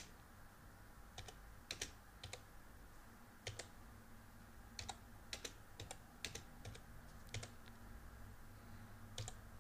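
Computer keyboard keystrokes, faint, pressed one at a time in a slow, uneven rhythm of short clicks as numbers are entered.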